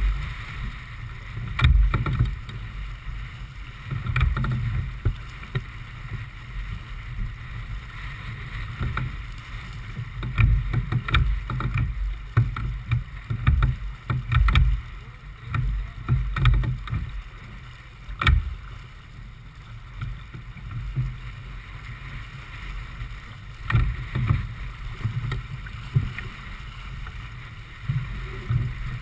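A J/24 keelboat under sail: water rushing along the hull with a gusty low rumble of wind on the microphone, broken by a few sharp knocks.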